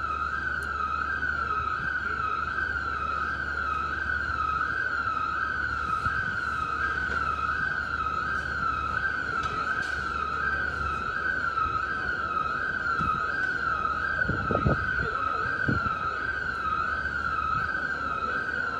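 Electronic siren wailing in a fast, even up-and-down warble at a steady level throughout.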